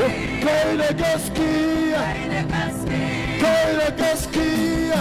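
Live gospel worship music: voices singing long, held notes over a band with drums and cymbals.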